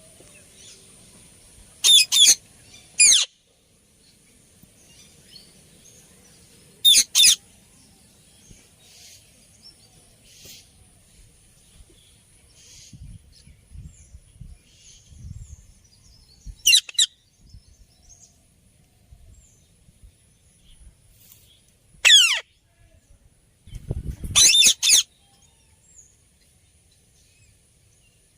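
Indian ringneck parrot giving loud, short, shrill calls in scattered groups of one to three, several of them falling in pitch, with quiet gaps of several seconds between groups.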